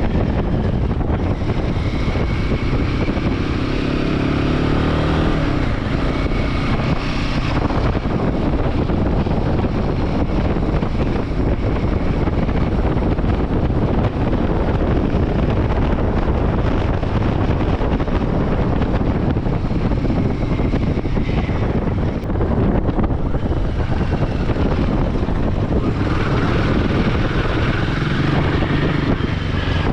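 Royal Enfield Himalayan 450's single-cylinder engine running as the motorcycle is ridden, with wind rushing over the microphone. The engine note rises in pitch about four seconds in and again near the end.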